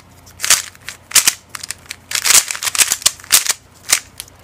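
QiYi Bullfight 3x3 speedcube being turned by hand: quick flurries of plastic clicks and clacks as the layers snap round, in several short runs with brief pauses between. A fast, smooth cube straight out of the box that the owner feels needs lube.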